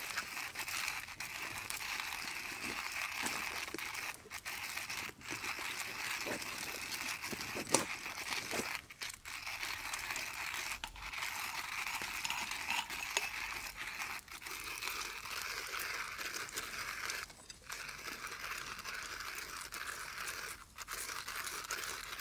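Hand-cranked coffee grinder crunching coffee beans, a steady gritty grinding broken by a few short pauses.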